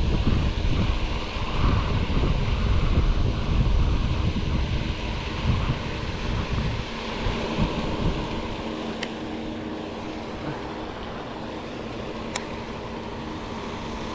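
Wind buffeting the microphone in gusts, heaviest in the first half, over a steady low hum, with two faint sharp ticks in the second half.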